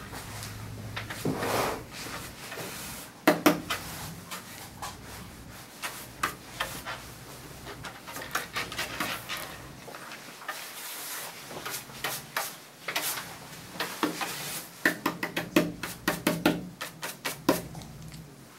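Handheld grooming brush sweeping clipped dog hair off a rubber-matted grooming table, in scrubbing strokes with some sharp knocks, the loudest about three seconds in and a quick run of strokes near the end.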